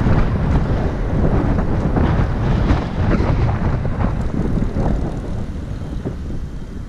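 Wind buffeting the microphone on a moving electric scooter, giving a loud, uneven low rumble that eases a little near the end.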